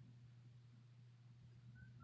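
Near silence: room tone with a faint steady low hum, a quiet pause between a sleeper's snores.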